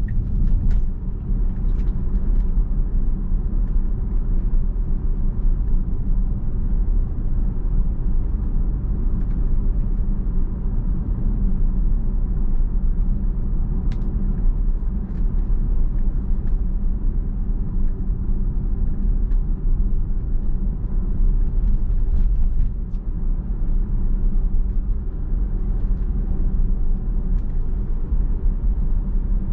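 Steady low road and tyre rumble heard inside the cabin of a Tesla electric car cruising at about 25 mph, with no engine sound and a few faint clicks.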